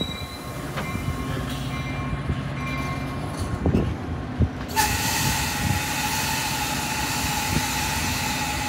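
Metra commuter train's bilevel coaches rolling past at close range: a steady rumble with a few sharp wheel knocks over rail joints. About five seconds in, a loud high hiss and a steady wheel squeal set in.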